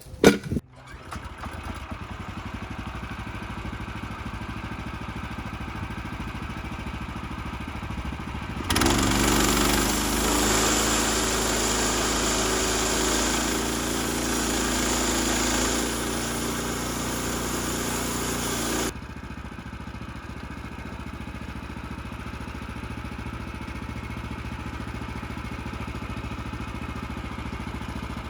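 An engine running steadily, with a knock right at the start. A much louder stretch with a hiss on top begins abruptly about a third of the way in and stops abruptly about ten seconds later, then the steadier, quieter running resumes.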